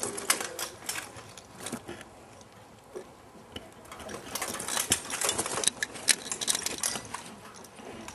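Rattan swords clattering against shields and armour in quick flurries of blows, a rapid run of sharp knocks, then a lull of about two seconds before another flurry.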